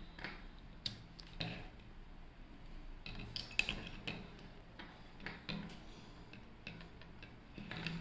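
Faint, irregular clicks and taps from hands handling a small amplifier circuit board while moving a speaker's wires to the other output channel's terminal.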